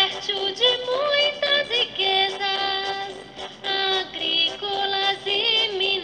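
Brazilian municipal anthem sung in Portuguese: a singing voice carrying the melody with music.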